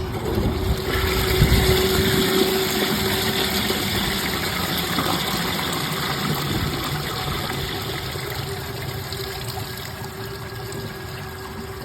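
Vortens Vienna round toilet flushing from a tank filled only to its middle line: water rushes into the bowl, loudest a second or two in, then slowly dies away as the bowl drains, over a steady hum. The flush siphons out weakly; the water swirls as it goes down and breaks the siphon, which is typical of this front-flushing bowl on a mid-level tank.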